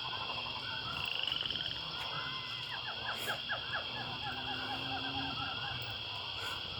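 Outdoor chorus of small animals calling: a steady high buzzing drone with many short, quickly repeated chirps over it, and a faint low hum underneath.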